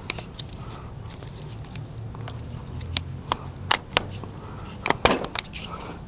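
Sharp, scattered clicks and rattles from a Bosch Bulldog Xtreme SDS rotary hammer being handled as a bit shank is locked into its SDS chuck, with a group of clicks in the middle and another near the end. A low steady hum runs underneath.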